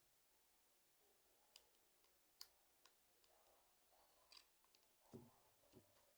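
Near silence broken by a few faint, short clicks, with two soft knocks near the end.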